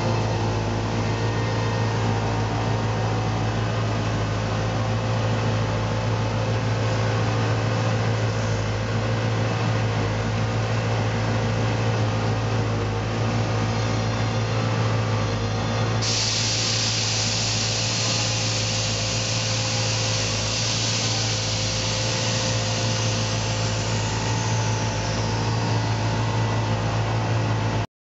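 Steady low mechanical hum from the 1940 Chevy pickup, joined about halfway through by a sudden loud hiss of air rushing out of the air ride suspension as the truck is let down.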